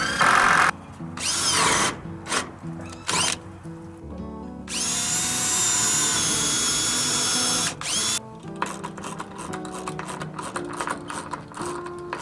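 Cordless drill working into treated lumber. It gives several short bursts with the motor whining up and down, then one steady run of about three seconds boring a pilot hole, then quieter bursts with rapid clicking. Background music plays underneath.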